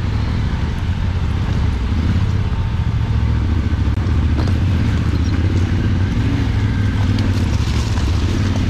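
Off-road motorcycle engine running steadily at low revs, with a few faint light clicks over it.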